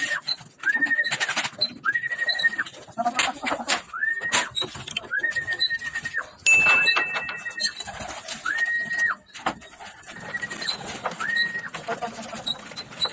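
Young racing pigeons landing on a loft's wire trap: wing flaps and sharp knocks on the wire, loudest about six and a half seconds in, against a short, high, level-pitched call that repeats every second or two.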